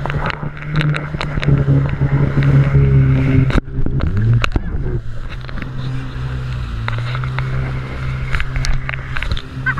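Jet ski engine running hard, with water spray slapping the hull in sharp splashes. About three and a half seconds in, the engine note drops suddenly and then climbs back up.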